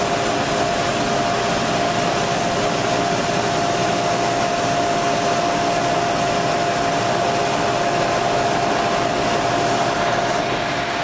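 Claas Lexion combine harvester running while its unloading auger pours wheat into a grain cart: a steady machine rush with a constant whine. Near the end, as the grain stream thins, the level dips a little and the whine begins to drop in pitch.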